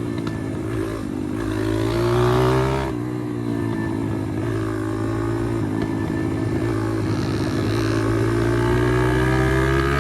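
Pit bike engine running hard under way. Its pitch climbs, drops suddenly about three seconds in as a gear is changed, then builds again steadily.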